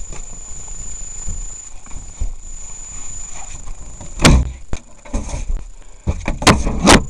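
Knocks and bangs on the body and door of a small hard-shell camper trailer as a person clambers in through its doorway: a loud bang about four seconds in and two more in quick succession near the end, over a low rumble.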